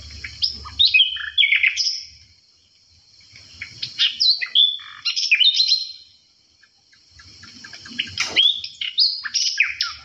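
Songbird singing in three bursts of quick, varied whistled notes that slide up and down, with short pauses between the bursts.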